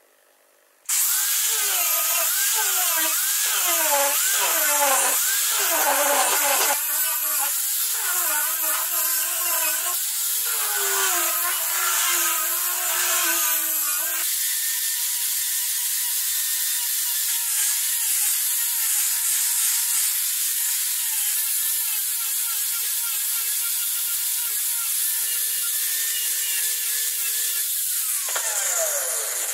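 Handheld power sander with a spinning sanding disc working across a mulberry-wood slab. For the first half the motor's pitch wavers up and down as the disc is pressed and moved over the wood; after that it runs steadier, and near the end the motor winds down with a falling pitch.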